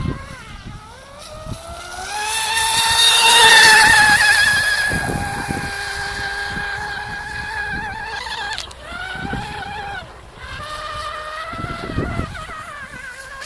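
Radio-controlled F1 racing boat's engine running at speed, a high-pitched note that rises and falls as the boat laps the course. It is loudest about three to four seconds in and dips briefly as the boat goes through turns.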